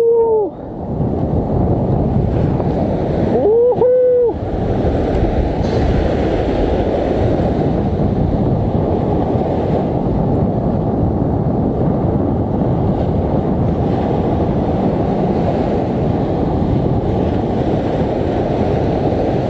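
Heavy surf breaking and washing up the beach, mixed with strong wind buffeting the microphone in a steady loud rush. About four seconds in, a person gives one short vocal sound.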